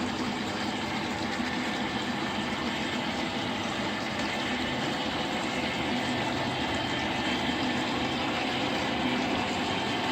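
O scale Lionel three-rail model train running on the track: a steady hum of the motor with the rolling noise of the wheels on the rails.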